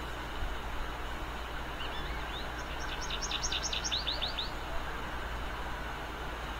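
A small songbird calling: a quick series of about a dozen short, rising chirps lasting about two seconds, a couple of seconds in. Behind it runs a steady low background rumble.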